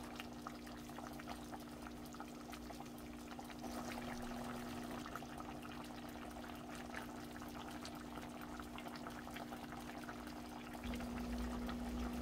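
A pot of chicken stew simmering on the stove, with faint fizzing and bubbling over a steady low hum. The hum gets louder near the end.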